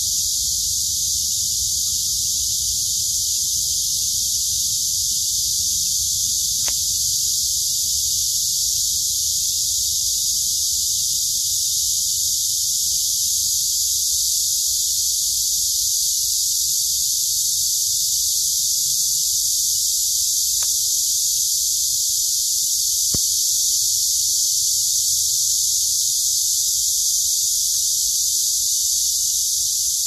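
Dense chorus of cicadas: a continuous, shrill, steady buzz, over a faint low rumble.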